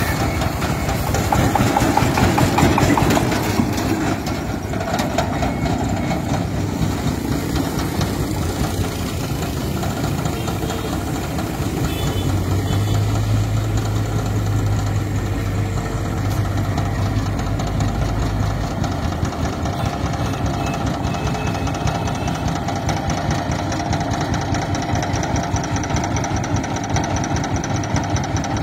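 Công nông farm truck's single-cylinder diesel engine running steadily and idling, louder in the first few seconds as it drives off. A deeper steady hum joins for several seconds in the middle.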